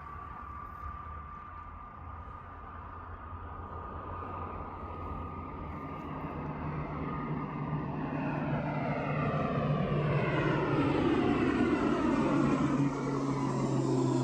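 Jet airliner's engines growing steadily louder as it approaches, a thin steady whine at first, then a sweep of falling tones over a deepening drone in the second half as it passes close.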